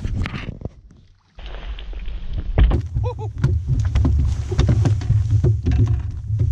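Knocks and handling noises in a fishing boat over a steady low rumble, with a brief drop-out about a second in.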